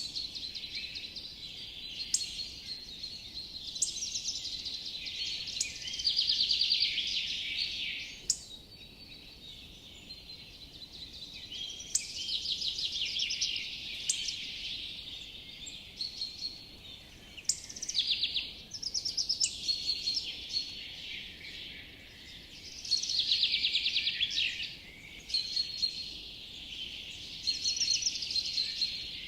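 Forest birdsong: several birds calling at once, with rapid high trills about six, twelve and twenty-three seconds in, over a steady high-pitched background hum of calls.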